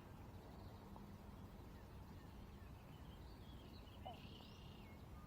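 Near silence: a faint low rumble, with a few faint bird calls about three to four and a half seconds in.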